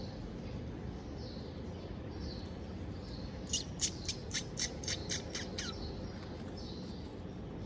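A quick run of about nine sharp, high chirps, each falling in pitch, about four a second, over a steady low background noise, with fainter single chirps about once a second.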